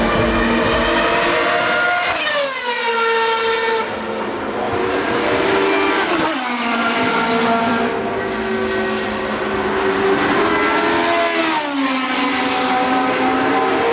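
Vintage Formula One car engine running at high revs, a loud, high-pitched note whose pitch drops sharply three times: about two seconds in, about six seconds in and near the end.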